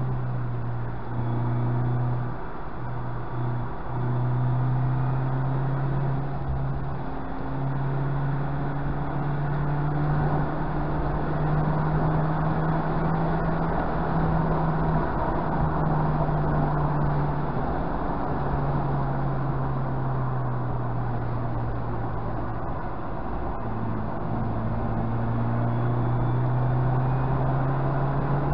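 Mazda MX-5's four-cylinder engine pulling up a mountain road, heard from inside the cabin over steady tyre and wind noise. The engine note breaks briefly a few times in the first seconds, drops for a stretch in the middle and climbs again near the end as the driver changes throttle and gears.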